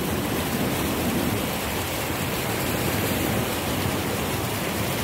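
Steady rushing and splashing of floodwater as a car drives through a flooded road.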